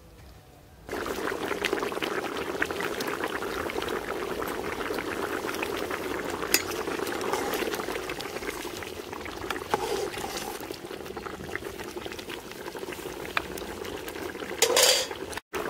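Fish curry bubbling at a vigorous boil in a large pot over a wood fire, a dense steady crackle of popping bubbles that starts about a second in. One brief louder sound near the end.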